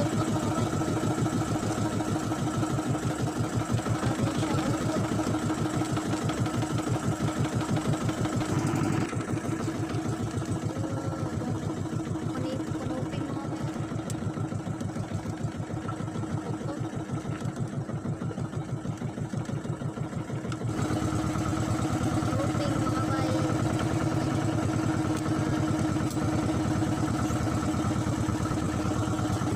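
Small fishing boat's engine running with an even, rapid putter. It drops quieter and duller for several seconds in the middle, then picks back up.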